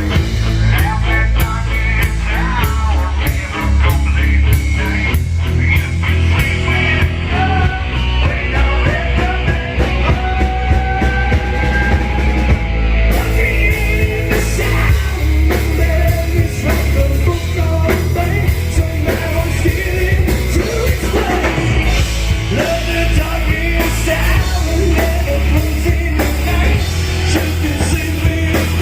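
Live hard-rock band playing at full volume: electric guitars, bass guitar and a drum kit, with sung lead vocals.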